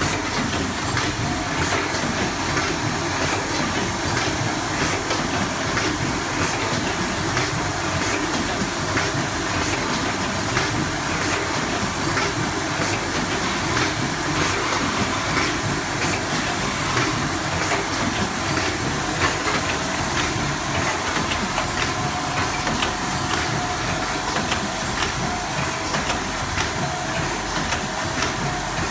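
Automatic triangle nylon-mesh tea-bag packing machine running with its inclined bucket elevator: a steady mechanical clatter of many quick clicks over a constant hiss.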